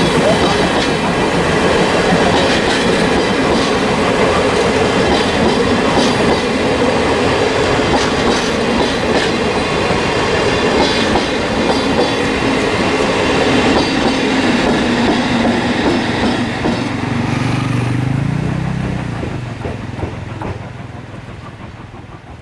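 Steam-hauled passenger train rolling past on the rails, its wheels running over the track, then growing quieter near the end as it moves away.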